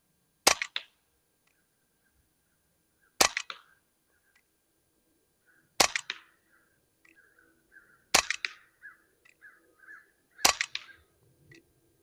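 Umarex Glock 19X Gen 5 CO2 BB pistol firing five sharp shots, about two and a half seconds apart, with the CO2 cartridge that the shooter is pretty sure is dying down.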